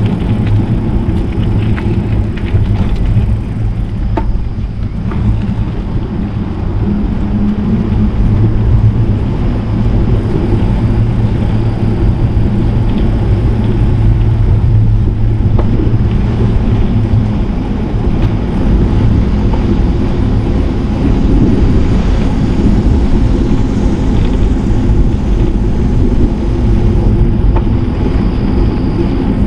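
Steady low rumble of wind buffeting the microphone during a bicycle ride, with a few small clicks and knocks.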